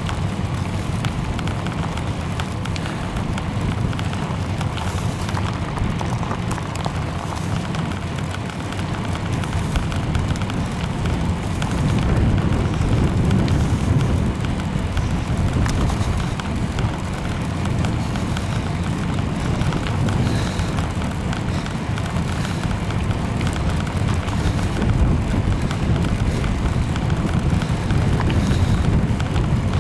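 Wind buffeting the camera microphone as it moves along the path: a steady low rumble with crackle, swelling a little about twelve seconds in.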